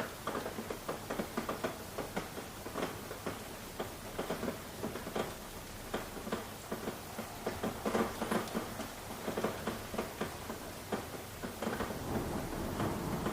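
Rain falling, with many individual drops tapping irregularly over a steady hiss. A low rumble rises near the end.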